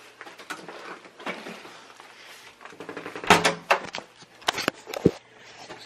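Hotel room door being opened and handled as someone comes in with luggage: a series of clicks and knocks, the loudest about three seconds in and again around four and a half to five seconds.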